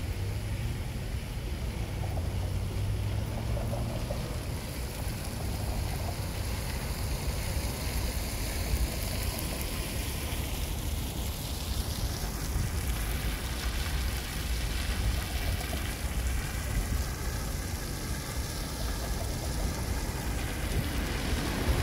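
Steady city-street background noise: a low rumble of traffic with an even hiss and no clear single event.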